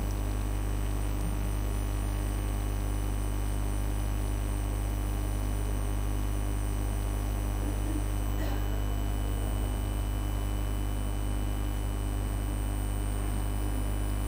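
Steady low electrical mains hum at 50 Hz and its double, with a faint click about eight and a half seconds in.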